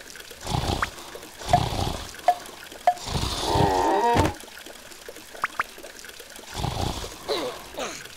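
Cartoon sound effects: wet, squelchy slides and a few soft thumps, mixed with short squeaky character noises. A wavering warbling cry comes about halfway through, with a quick rattle of clicks just after it.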